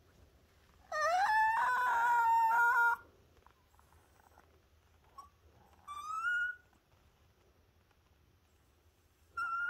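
Small long-haired dog whining in high-pitched cries: a long one that rises and holds about a second in, a shorter rising one around six seconds, and another at the very end.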